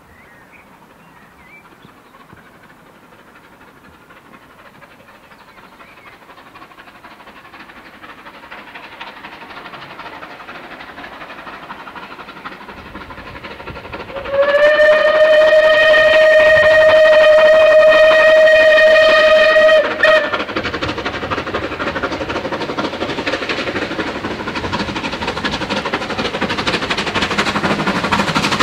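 Southern Railway unrebuilt Battle of Britain class steam locomotive No. 34070 'Manston' approaching under steam, its sound growing louder as it nears. About halfway through it gives one long, loud single-note whistle of about five seconds, ending with a short second toot. The locomotive's working steam and the train's running noise then build, loud and close, as it draws near.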